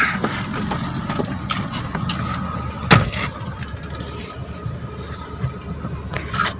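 Car running, heard from inside the cabin as a steady low rumble, with one sharp knock about three seconds in.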